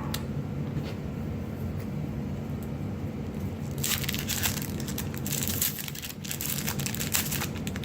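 A Magic: The Gathering booster pack's foil wrapper crinkling as it is torn open, starting about four seconds in, after a few faint clicks.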